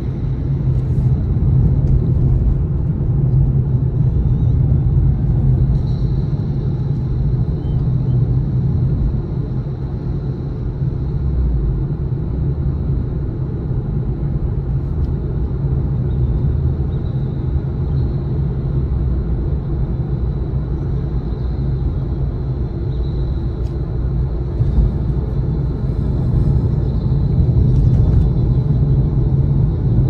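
Nissan Fairlady Z (Z34) on the move: steady engine and road rumble with a deep low drone, heard as the car drives along.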